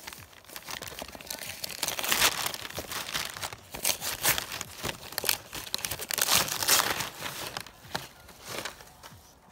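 Gift wrapping paper and tissue paper being torn and crumpled by hand as a box is unwrapped: irregular rustling and crackling that dies down near the end.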